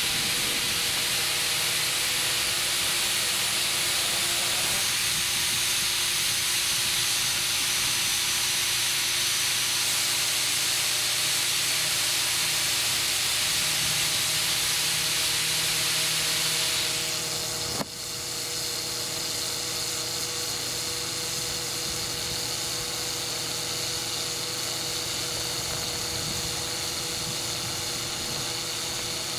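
Air hissing steadily at a 20.8R38 tractor-tyre inner tube. About two-thirds of the way through the hiss drops off sharply with a click, and a weaker hiss carries on.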